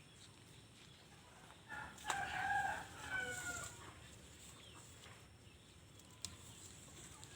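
A rooster crows once, starting about two seconds in and lasting roughly two seconds, over quiet background; a single sharp click sounds near the end.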